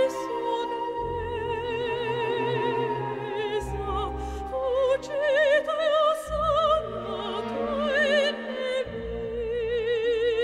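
Operatic soprano singing a slow aria with wide vibrato, over an orchestra with strings and sustained low bass notes.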